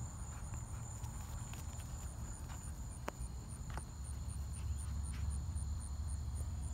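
Outdoor field ambience: insects, likely crickets, keeping up a steady high drone with evenly spaced chirps about three a second, over a steady low rumble. A couple of short clicks come about three seconds in.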